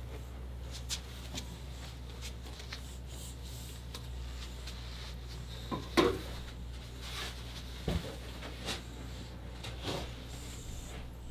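Scattered soft clicks, scrapes and knocks, the loudest a sharp knock about six seconds in, from an old cat moving about in a plastic litter box, over a steady low hum.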